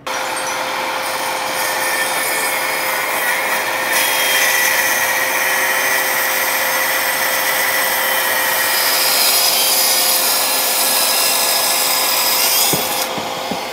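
TICHOP TPS-140BL-B cordless plunge saw cutting through 30 mm MDF along its guide rail with the blade bevelled to 45°: a steady saw noise with a constant motor tone, tailing off near the end as the cut finishes.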